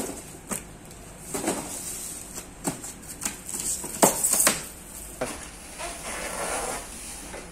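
Packaging being handled inside a carton: cardboard boxes, plastic wrap and styrofoam rustling and knocking as the elliptical's parts are moved. There are scattered sharp knocks, the loudest a pair about four seconds in, then a longer rustle near the end.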